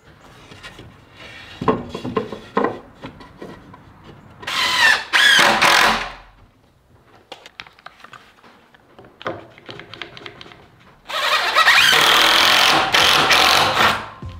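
Cordless drill driving screws into a wooden frame in two runs: a short one about four seconds in and a longer one of about three seconds near the end, its motor whine shifting in pitch as the screw goes in. Light knocks from handling the wood come in between.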